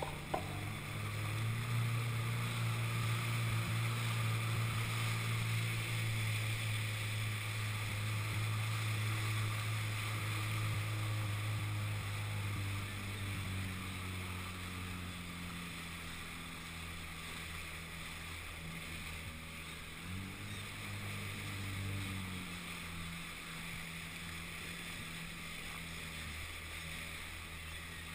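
Sea-Doo 3D Di jetski's 951 cc two-stroke twin running at low speed, a steady low engine hum over water and wind hiss. Its note shifts about halfway through and lifts briefly about twenty seconds in before settling again.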